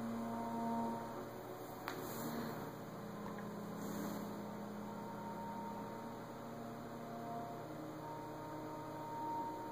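Steady low electrical hum with a few faint steady tones coming and going over it, and a single light click about two seconds in.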